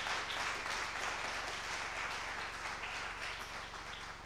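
Audience applauding, a dense steady clatter of clapping that begins to die away near the end.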